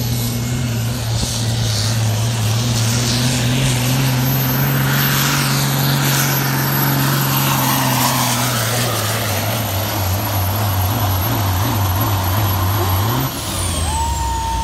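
Caterpillar diesel engine of a pulling semi truck at full throttle under the load of a weight-transfer sled. It holds a steady pitch that begins to waver after about nine seconds, then drops off about a second and a half before the end as the throttle comes off, with a high whine falling away after it. A short high tone sounds near the end.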